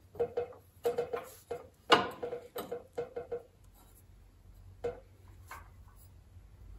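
Metal bracket clinking and knocking against a Jeep CJ2A's steel frame as it is shifted into place to line up its bolt holes. A quick run of sharp clinks, the loudest about two seconds in, then a single knock near five seconds.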